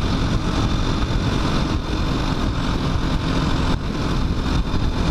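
KTM 500 EXC-F single-cylinder four-stroke engine running steadily at cruising speed, mixed with wind buffeting a microphone inside the rider's helmet. The sound is steady throughout.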